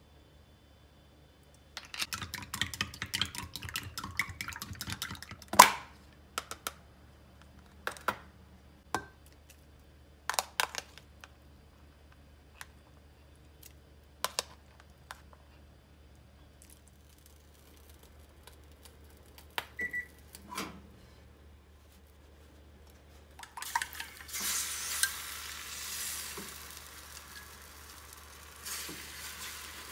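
Beaten egg being whisked in a ceramic cup with a utensil: quick clinking for a few seconds, then a series of single taps against the cup. About 24 s in, egg mixture goes into a hot rectangular tamagoyaki pan and sizzles steadily.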